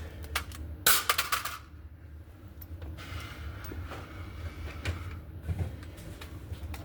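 Rifle and magazine handling: a quick run of sharp clicks and rattles about a second in, then scattered single clicks and some rustling over a steady low rumble.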